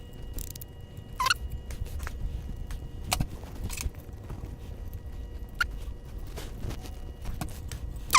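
Handling sounds of a rubber timing belt being threaded through a 3D printer's frame: scattered light clicks and rustles, with a short squeak falling in pitch about a second in and a louder one at the very end.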